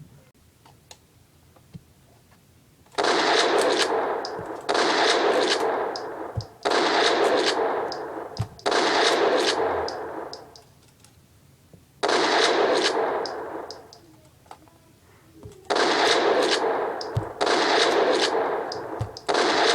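Shotgun blasts, eight in all, spaced about two to three seconds apart: each one starts sharply and fades over a second or two.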